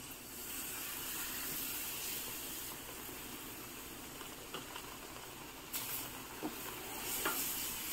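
Milk hissing and sizzling as it hits a hot pan of ghee-roasted ragi flour, a steady hiss that swells about half a second in and holds. A few light taps in the second half.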